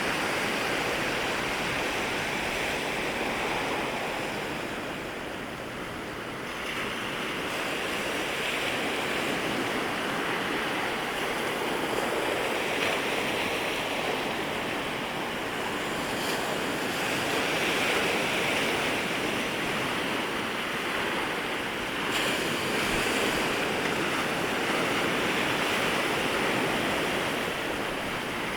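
Sea waves breaking and washing in at the shoreline, a continuous surf that swells and eases as overlapping waves come in. It dips briefly about five seconds in, then builds again.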